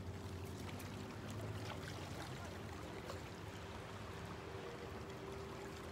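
Calm sea water lapping gently against low rocks in the shallows, with a soft steady wash and scattered faint little splashes. A steady low hum runs underneath.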